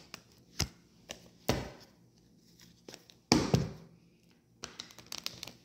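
A few sharp knocks and thumps of things being handled on a tabletop, with a quick run of light clicks near the end.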